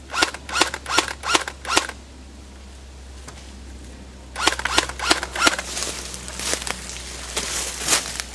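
Airsoft rifles firing single shots: a quick run of about five sharp pops in the first two seconds, then after a pause another string of shots from about four and a half seconds in, softer and more spaced toward the end.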